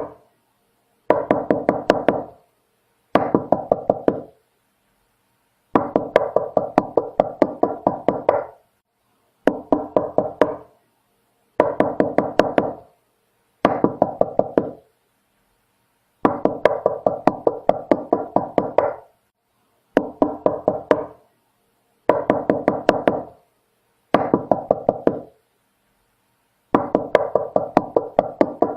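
Knocking on a door: about eleven bursts of rapid raps, roughly four knocks a second and several knocks per burst, with a second or two of silence between bursts.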